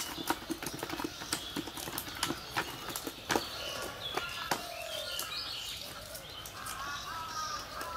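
Quick, irregular taps and slaps as small fish are picked out of a cast net on bare ground, thinning out about halfway through. Birds chirp over the second half.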